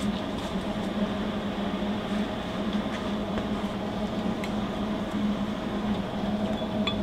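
MIG welder switched on and idling, its transformer and cooling fan humming steadily, with a few faint ticks.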